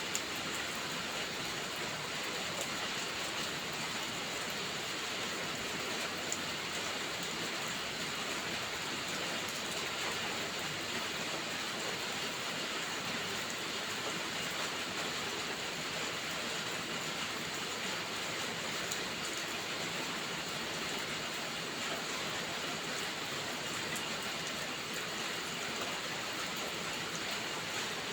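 Steady rainfall, an even hiss, with a few faint ticks scattered through it.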